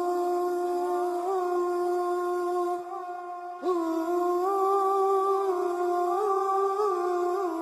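Background music: a single voice humming a slow melody in long held notes with small wavering ornaments, breaking off for a breath about three seconds in and coming back with an upward scoop.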